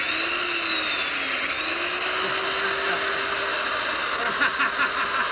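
Handheld electric power tool running, its motor whine sagging in pitch about a second and a half in, then climbing back and holding steady.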